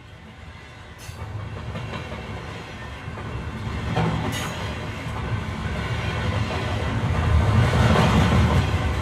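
Electric passenger train running on the rails, its low rumble growing steadily louder, with two sharp clicks about a second in and about four seconds in.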